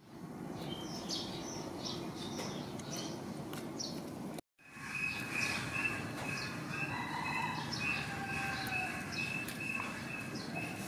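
Outdoor background with small birds chirping. It cuts off briefly about four seconds in, and after that a steady, high, slightly pulsing tone runs under the chirps.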